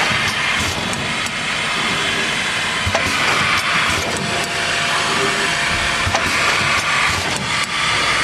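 Mondial Pack MV100 Super Stabilo coffee packaging machine running: a steady hiss and mechanical clatter, with sharp clicks every second or so.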